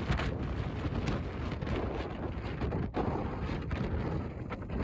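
Strong, gusty wind buffeting the microphone: a heavy, uneven low rumble that swells and dips, with a brief lull about three seconds in.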